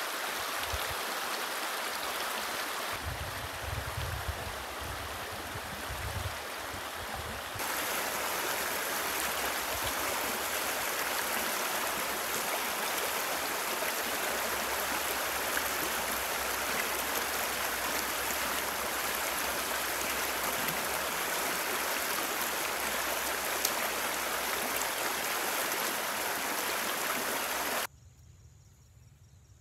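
Shallow, fast stream rushing over rocks: a steady rush of water. Near the end it cuts off abruptly to a much quieter background.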